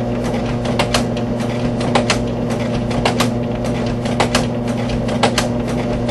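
Singer Caramate II SP slide projector running: its motor hums steadily while the slide-advance mechanism clicks, often in pairs, about once a second as the carousel steps round.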